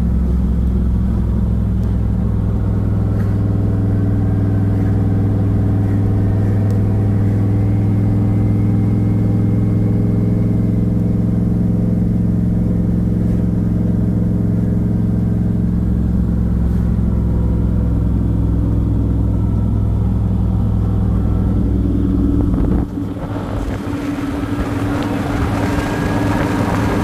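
Turbocharged LS V8 of a 1969 Camaro running at a steady pitch while cruising, heard from inside the car, a deep drone with road noise. Near the end the engine drone drops away and a rush of wind noise takes over.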